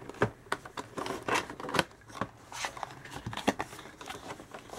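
Cardboard product box being opened by hand: flaps pulled open and the carton handled, with irregular scraping and sharp clicks and taps, two louder snaps about two and three and a half seconds in.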